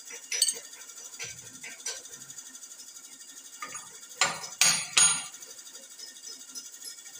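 Metal-on-metal knocks as a steel bar strikes a sprocket gear clamped in a large four-jaw lathe chuck. A few light taps come first, then three loud clanks in quick succession a little past halfway.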